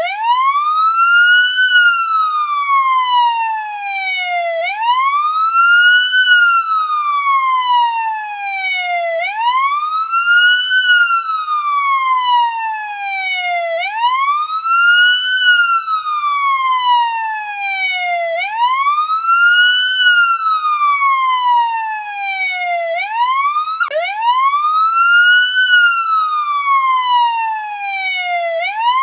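Police siren in wail mode: the pitch rises quickly, then falls more slowly, in a cycle that repeats about every four and a half seconds. Near the end one fall cuts off abruptly and the rise starts again.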